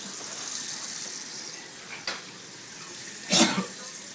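Kitchen tap running steadily into a sink, with a short click about two seconds in and one loud cough near the end.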